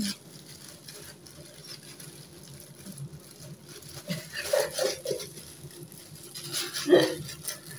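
Soft patting and rubbing as hair dye is worked into the hair, with two brief louder sounds, one about halfway through and one near the end.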